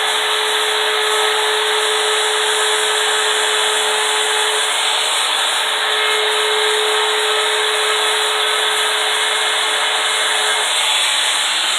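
Wood router fitted with a 30-degree CNC V-bit running continuously while carving letters into a wooden sign: a steady whine under the hiss of the bit cutting wood. The whine fades out near the end.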